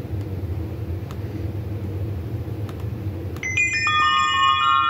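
A low steady rumble, then about three and a half seconds in, a cascade of bell-like chime tones from a stargazing app's ambient soundtrack enters one note after another and rings on.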